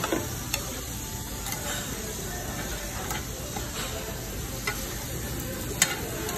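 Shrimp, squid and sliced meat sizzling in oil on a round stainless tabletop grill, with a few sharp clicks. The loudest click comes about six seconds in.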